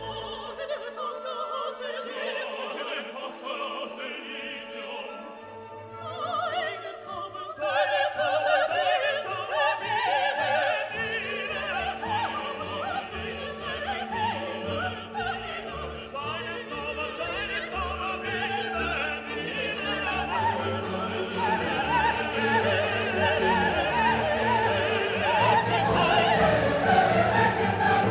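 Orchestral music with operatic singing, thin at first, then fuller from about eight seconds in, with a deep bass line coming in and the music growing louder toward the end.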